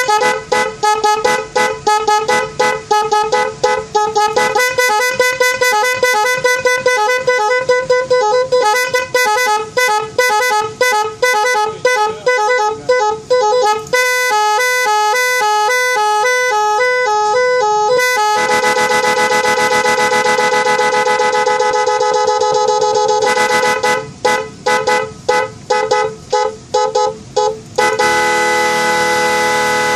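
Multi-tone snail-type electric vehicle horn (klakson keong) sounding a string of its preset patterns: fast stuttering beeps, then a rapid two-tone warble about halfway through, a long steady blast, more quick stutters, and a held tone near the end.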